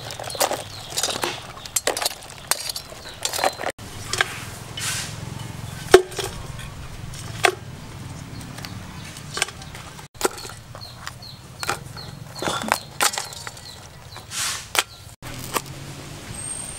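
Live crabs scrabbling and being handled in a woven bamboo basket: irregular clicks, scratches and knocks of shells and legs on the bamboo.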